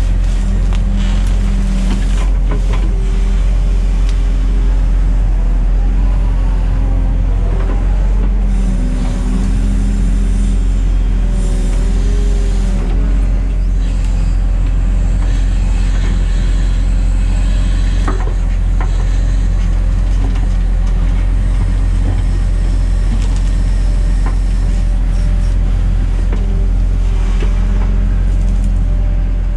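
Diesel engine of heavy construction machinery running steadily, a loud low drone whose pitch rises and falls a little as the machine works.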